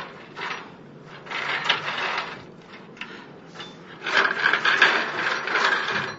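A wooden ladder being shifted and set against a wall, scraping and knocking in irregular bursts, busiest from about four seconds in.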